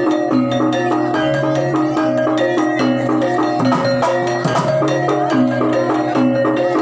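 Javanese gamelan music: metallophones strike a repeating stepwise melody over hand drums and dense percussion, the kind that accompanies a jaranan horse-dance troupe.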